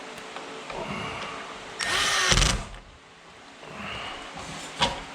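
Power drill running in one short burst about two seconds in, driving a screw, its motor pitch swooping as it speeds up and slows. A sharp click comes near the end.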